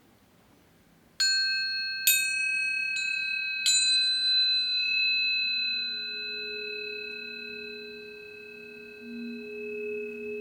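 Tuning forks struck four times in quick succession, each strike leaving clear, high ringing tones that sustain and slowly fade. About halfway through, a softer, lower two-note hum swells in beneath them.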